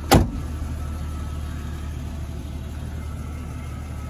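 A car door shuts with a single sharp thud just after the start, then the 1999 Jeep Cherokee XJ's 4.0-litre straight-six idles steadily.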